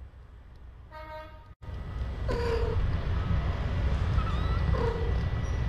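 Nursing kittens mewing: three short, high calls spread over a few seconds as they jostle at the mother cat's teats, over a steady low hum that grows louder after a brief cut-out in the sound.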